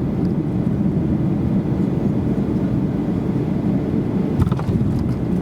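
Steady rumble of a Ryanair Boeing 737-800's cabin in flight on the approach to landing, with a brief knock about four seconds in.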